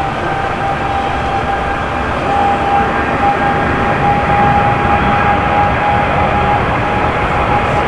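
Boeing 787-8 Dreamliner jet engines running loud and steady: a broad rush with a single steady whine over it.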